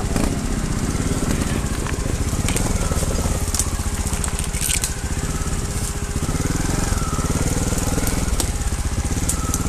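Trials motorcycle engine running steadily at low revs, with scattered sharp clicks and crunches of stones and brush under the bike.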